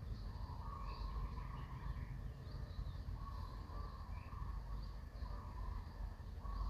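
Outdoor ambience: a steady low rumble with short, high chirping animal calls repeating about once a second.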